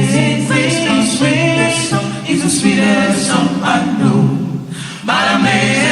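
Church choir singing in parts without accompaniment, moving through long sung notes of a gospel refrain. There is a short break about five seconds in before the next phrase begins.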